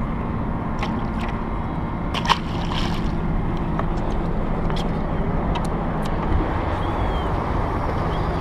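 Boat motor running with a steady low hum, water sloshing against the hull, and a few sharp clicks and knocks of handling on the boat, the loudest about two seconds in.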